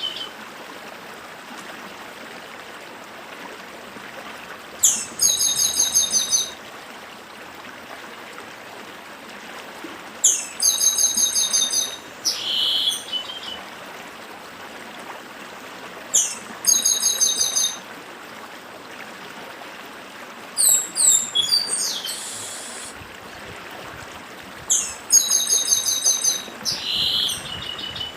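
Chestnut-capped blackbird (papa-arroz) singing its 'dedim' song: five short phrases, one about every five seconds, each a rapid run of high notes. A stream rushes steadily underneath.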